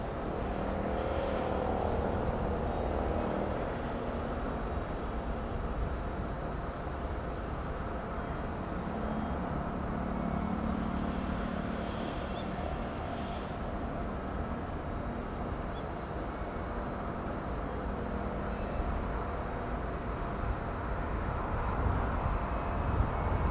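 Steady outdoor background rumble with a faint engine-like hum that swells about midway, and a louder low rumble near the end.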